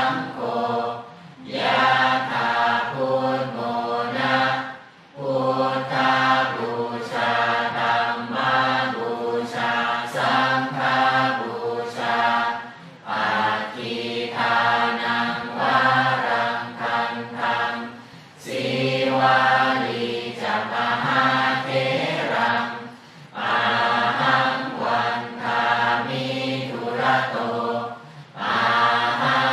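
Voices chanting a Buddhist mantra together in steady pitched phrases of a few seconds each, with brief pauses for breath between them.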